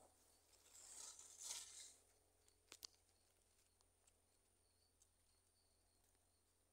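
Near silence, broken about a second in by a brief faint rustle of raspberry leaves and stems as a hand reaches into the plant, then two faint clicks.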